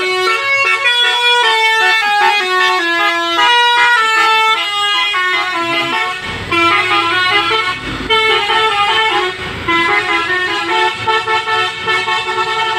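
Bus 'telolet' musical air horn playing a quick tune of stepped notes, several tones sounding at once. A low engine rumble joins in under it near the middle as the bus moves off.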